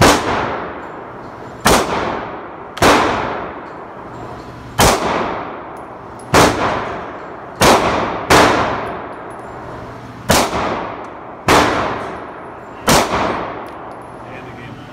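Ten gunshots fired one at a time at an uneven pace, about one to two seconds apart. Each crack rings out in a long echo off the indoor range's walls.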